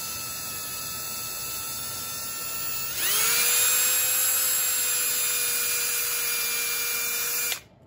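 Milwaukee cordless drill spinning a flexible-shaft attachment with a small bit: a steady motor whine that rises sharply in pitch and loudness about three seconds in, holds at the higher speed, then cuts off just before the end.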